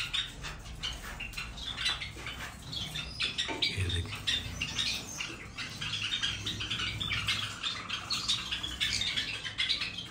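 A colony of small finches, Java sparrows among them, chirping and chattering all at once in many short, overlapping calls, over a faint steady low hum.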